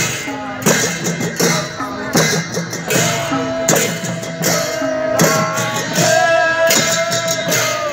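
Folk dance music with a steady drum beat under a melody; about three seconds in, one long note is held until near the end.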